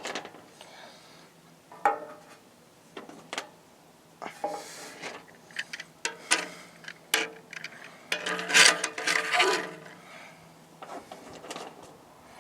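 Toys being handled and set out on a surface: scattered light clicks and knocks as small toy figures and a tin toy are put down. A longer scraping, rubbing spell about eight and a half seconds in is the loudest part.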